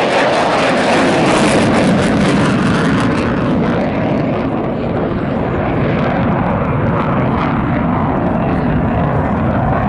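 Aircraft engine noise from a plane flying past, loud and steady, its hissy upper edge strongest early and easing after about four seconds.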